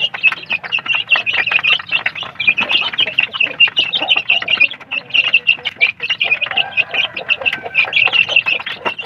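A flock of young kampung chicks peeping continuously in a dense chorus of short high calls while they feed, with quick pecking clicks on the metal trough feeder.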